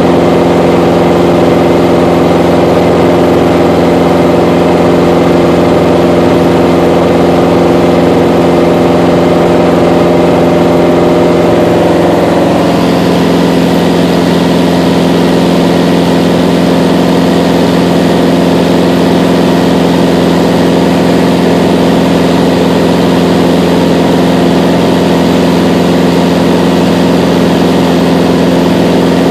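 Mooney M20J's four-cylinder Lycoming IO-360 engine and propeller running steadily in cruise flight, a constant drone heard inside the cabin. About halfway through, the tone of the drone shifts.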